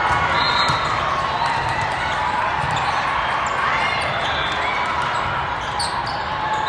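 Gym din of indoor volleyball play: many overlapping distant voices from players and spectators, with scattered sharp knocks of balls being hit and bouncing, and short high squeaks or whistles now and then.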